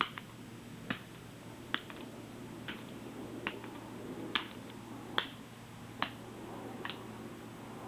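Real metal horseshoes on the costume's hooves striking a hard floor at a walk: a clip-clop of single sharp clicks, a little more than one a second.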